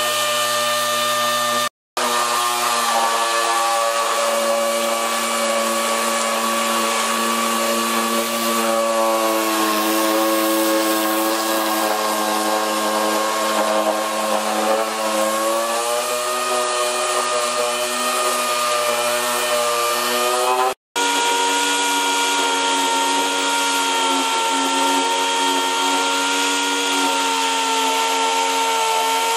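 Air-powered rotary sander with an amber wheel whining steadily as it grinds along a steel trunk-lid seam, stripping old dried seam sealer. Its pitch sags and recovers slightly with the load, and the sound cuts out for an instant twice, about 2 s and 21 s in.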